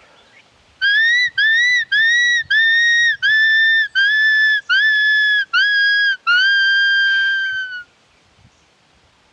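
A shepherd's whistle blown in a run of about nine short yelping notes, each swooping up at the start, with the last one held longer and sagging in pitch as it ends. It imitates a dog in distress caught in a trap, as a call to bring wild dogs in.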